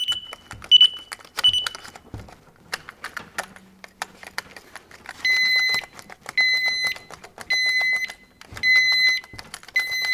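Anti-theft alarm lock on a motorcycle handlebar grip being tampered with: at first short high chirps and rattling and clicking as the grip lock is yanked. From about five seconds in the alarm goes off in a loud, even beeping about once a second, reading about 80 decibels.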